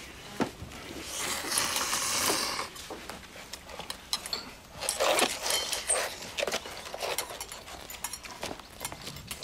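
People eating noodles at a table: long slurps, with chopsticks and bowls clicking and clinking. There is one long slurp starting about a second in and another about five seconds in.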